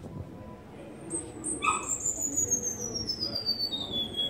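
Cuban bullfinch (negrito) singing: a short burst of notes a little over a second in, then one long high whistle gliding slowly down in pitch.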